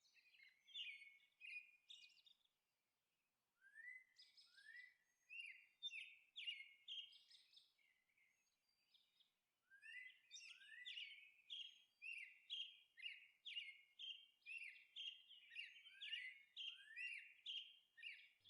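Faint bird chirps: short rising notes, scattered at first, then after a pause a steady run of about two chirps a second from around ten seconds in.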